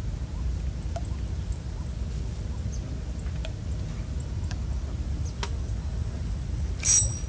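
Outdoor ambience: wind rumbling on the microphone, a steady high-pitched buzz and a few faint ticks, with one brief, sharp, high-pitched sound just before the end.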